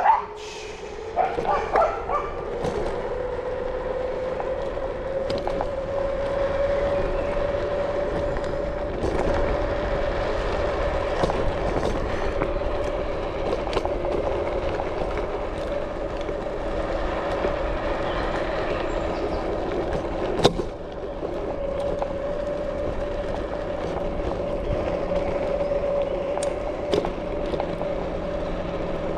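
Electric-bike motor whining at a steady pitch, climbing a little in the first few seconds, over the rough rumble of tyres on a dirt trail. A single sharp knock comes about twenty seconds in.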